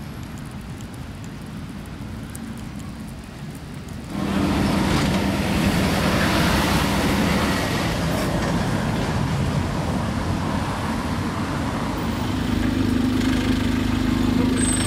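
Faint distant traffic, then from about four seconds in loud road traffic on a busy city street: cars and buses running past, with a steady engine hum growing stronger near the end.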